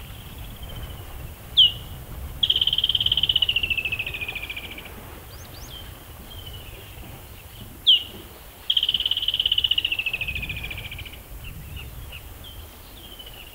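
A bird calling twice: each call is a sharp down-slurred note followed by a long, fast trill that falls in pitch over about two and a half seconds. Softer calls come in between, over a steady low rumble.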